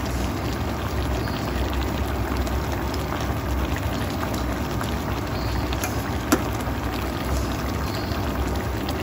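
Soy-ginger chicken sauce simmering and bubbling in a stainless steel wok, stirred with a slotted metal spatula, over a steady low rumble. A single sharp click about six seconds in.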